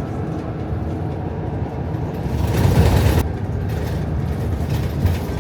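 Bus engine running with a steady low rumble, with a louder rush of noise lasting under a second, about two and a half seconds in.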